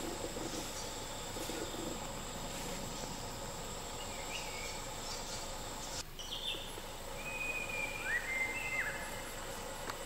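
Forest ambience: a steady, high insect drone. After a brief dropout about six seconds in, a bird gives a few clear whistled calls, one of them rising, holding and then falling.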